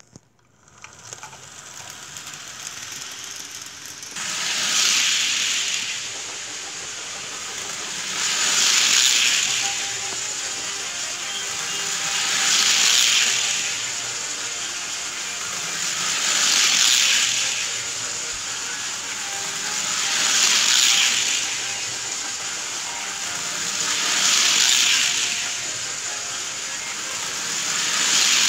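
Toy electric train running round an oval of track, a steady rolling rush of wheels on rails that gets going in the first few seconds and then swells and fades about every four seconds as the cars pass close by on each lap.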